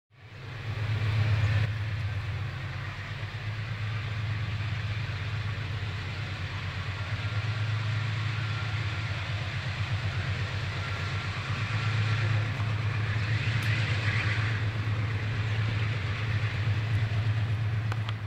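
Diesel freight locomotives running as they pull a train of tank cars toward the listener, with black exhaust smoke showing the engines working. Their engines give a deep, steady drone with a fast throb.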